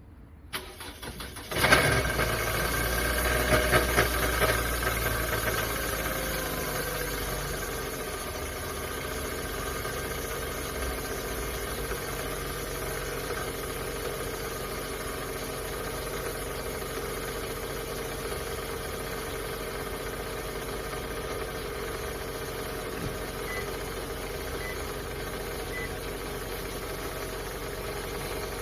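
Engine of a 20-series Toyota Vellfire (2.4-litre four-cylinder) starting, running unevenly for a few seconds and then settling into a steady idle. It carries an abnormal noise from the oil pan: the resin gear that drives the balancer shaft has stripped teeth.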